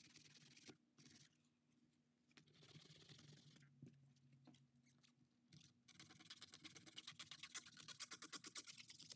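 Faint scratchy rubbing of sandpaper worked by hand over a hard plastic armrest frame, sanding off old glue. It comes in short spells at first, then from about six seconds in as quick back-and-forth strokes, several a second.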